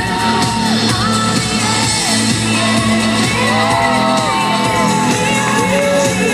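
Fireworks-show soundtrack played loud: a pop song with held, gliding sung notes over a steady low accompaniment, with shouts and whoops from a crowd.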